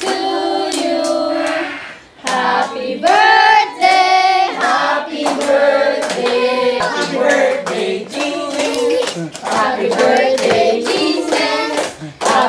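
A group of people singing together while clapping their hands, with many sharp claps throughout.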